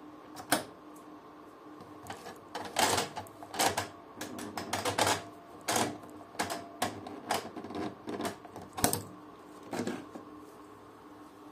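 Beko washing machine's programme selector dial being turned by hand, giving a run of irregular mechanical clicks, some louder than others, that stop about ten seconds in.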